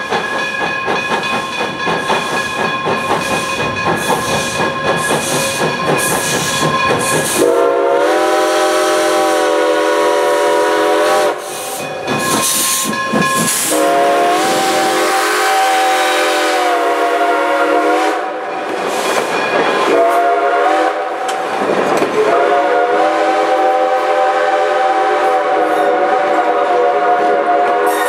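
A 4-4-0 steam locomotive passes at close range, its exhaust chuffing, then sounds its six-chime steam whistle in several long blasts, the first about seven seconds in.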